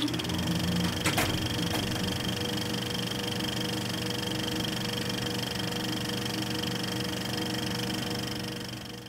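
A small machine running steadily with a constant hum and whir, with a sharp click about a second in and a fainter one shortly after.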